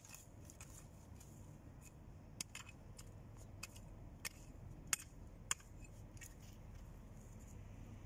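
Garden hoe chopping and scraping into loose soil: a string of faint, sharp ticks and scrapes at irregular intervals, the loudest about five seconds in.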